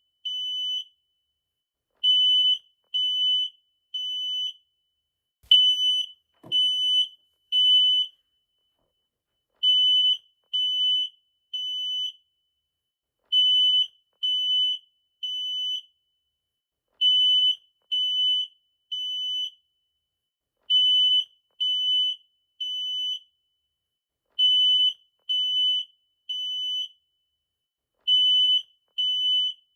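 Smoke detector alarm sounding one high, steady tone in groups of three beeps with a longer pause between groups: the temporal-three pattern that signals an evacuation alarm.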